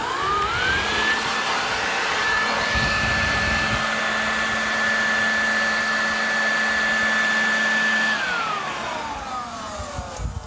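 Electric blower motor spinning up to a steady high whine and rush of air, held for about eight seconds, then winding down with the pitch falling. It is the simulated 150 mph sustained-wind test blast on the probe.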